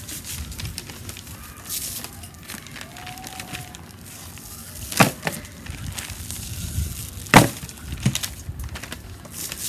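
Handling sounds while seasoning ribs: rub shaken from a plastic shaker bottle and butcher paper crinkling under the meat, with two sharp knocks about five and seven seconds in.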